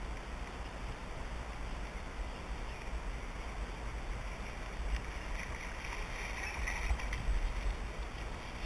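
Steady low wind rumble on the microphone, with a brief higher hiss about five and a half to seven seconds in.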